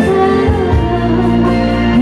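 A woman singing into a handheld microphone over instrumental accompaniment, holding long notes.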